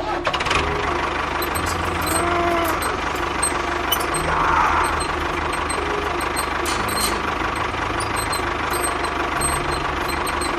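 An engine running steadily with a low, even pulsing, like a tractor engine at a constant speed.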